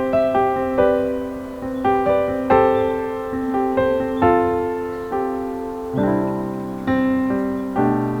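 Background music: a gentle solo piano playing struck notes and chords that ring and fade, with deeper bass notes coming in about six seconds in.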